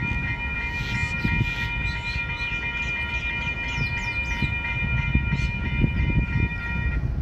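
Railway level-crossing warning bells ringing in rapid, even strikes, which cut off shortly before the end as the crossing is about to reopen, over a steady low rumble.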